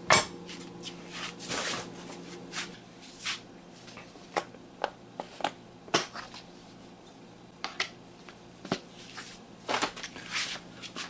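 Scattered taps, clicks and rustles of hands working on a wooden cutting board, beginning with a sharp knock: a chef's knife laid down on the board and a plastic tub of breading mix having its lid taken off. A faint steady hum sits underneath.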